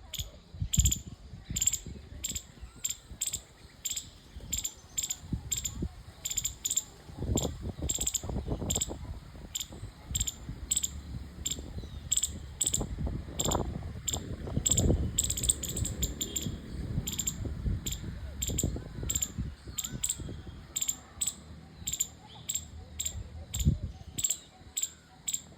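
A squirrel giving a long series of short, high-pitched chirps, evenly repeated about one and a half to two times a second. A low rumble runs underneath, strongest around the middle.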